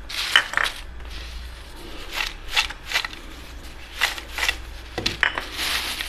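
Crisp fried raw-banana chips crackling and rustling on a paper towel as hands toss them to mix in salt, in a run of short irregular bursts, the longest near the end.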